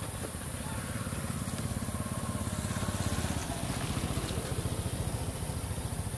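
A small engine running steadily, heard as a low, rapid, even throb, with a steady high hiss above it.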